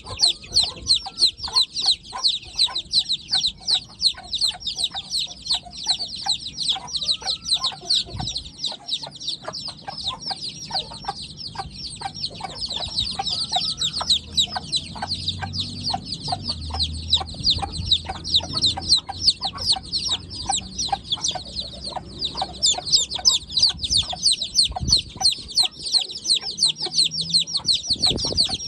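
A group of Heera Aseel chicks peeping continuously: rapid, overlapping high-pitched peeps, several a second.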